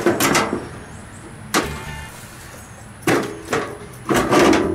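Steel VW Beetle replacement floor pan clanking and scraping against the chassis as it is dropped and pushed into place for a test fit: about half a dozen sharp metallic knocks, each with a short ring.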